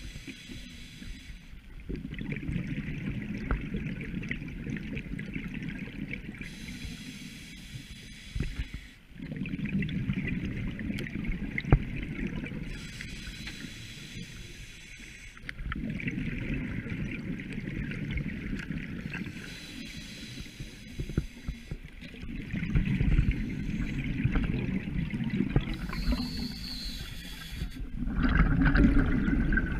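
Scuba diver breathing through a regulator underwater: a hissing inhale every six or seven seconds, each followed by a longer, bubbling exhale, about five breaths in all.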